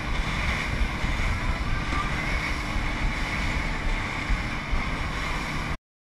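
Boat under way on open water: a steady rumble and rushing water, with wind on the microphone. It cuts off suddenly near the end.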